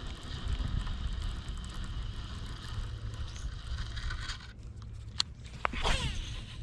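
Fishing reel being cranked quickly as a lipless rattling crankbait is retrieved, a fast fine scraping whir, over steady wind rumble on the microphone. A few sharp clicks and a short falling squeak come near the end.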